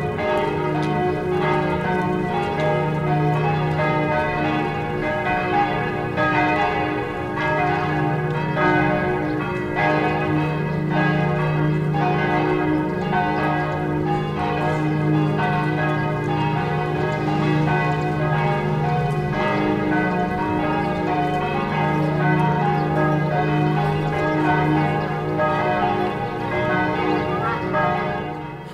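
Church bells pealing: several bells of different pitch ring together, struck over and over in a continuous peal. They are ringing the faithful to the festive morning Mass.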